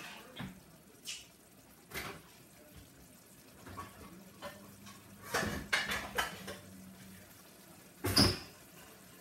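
Scattered knocks and clanks of pots, pans and lids being moved about while searching for a wok lid. There is a flurry of clatter about five and a half to six seconds in, and the loudest knock comes about eight seconds in.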